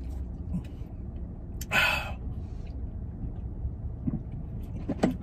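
A man lets out one sharp, breathy exhale about two seconds in, between swigs from a drink bottle, over a steady low rumble in a pickup truck's cab.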